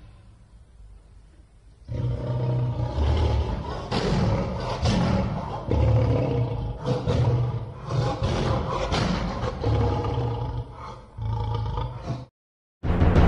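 Deep, rough animal roaring, a sound effect standing in for a giant dog. It comes in about two seconds in, repeats in surges for some ten seconds, and cuts off suddenly near the end.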